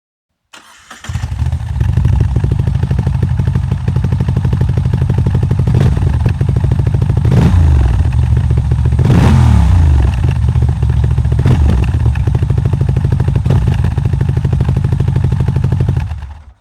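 Moto Guzzi V85TT's transverse V-twin starts up about a second in, idles with a lumpy beat, and is blipped several times, the biggest rev about nine seconds in, before it is switched off near the end.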